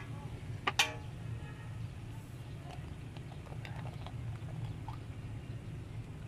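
A few sharp clicks and knocks, the loudest about a second in, over a steady low hum.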